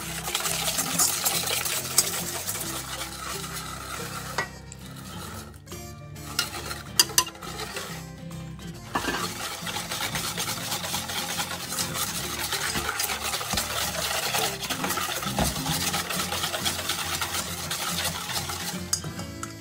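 Wire whisk beating egg and sugar, then milk, in a mixing bowl: a fast, steady scraping and clicking of the wires against the bowl. It stops for a few seconds partway through, with two sharp clinks, then starts again.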